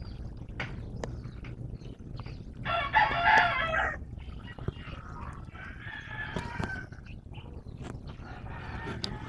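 A rooster crowing once, loud and a little over a second long, about three seconds in. Fainter calls follow around six seconds in and near the end, over a low steady background hum.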